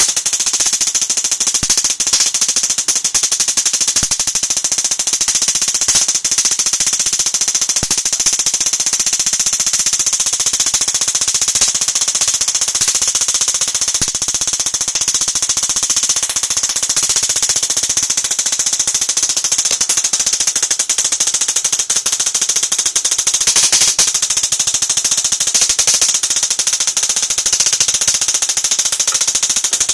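High-voltage sparks crackling in a loud, continuous rapid rasp with a steady hiss, as a neon-sign-transformer-driven 60 Hz resonant circuit arcs at the clip leads and coil taps.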